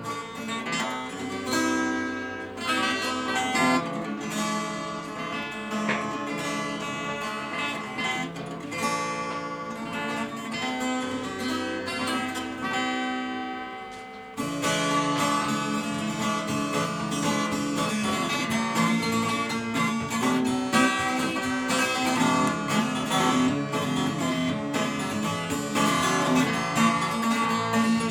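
Acoustic guitar playing an instrumental intro: picked notes ringing out at first, then about halfway through it moves into fuller, louder strumming.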